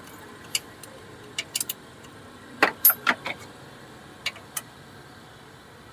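Light metallic clicks and clinks of an Allen key working a bolt on a car engine's coolant bleeder pipe. The clicks come singly at first, with a louder cluster of four or five about halfway through and two more after.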